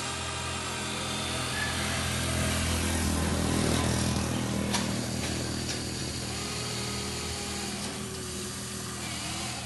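Huina radio-controlled model excavator's electric motors whining steadily as it digs and swings its arm, getting louder about three to four seconds in, with a couple of sharp clicks midway.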